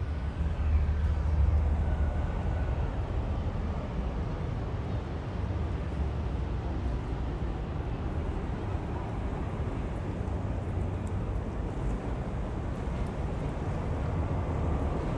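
Low, steady rumble of a large passenger ferry passing close by, with wind buffeting the microphone. The rumble is heaviest in the first couple of seconds.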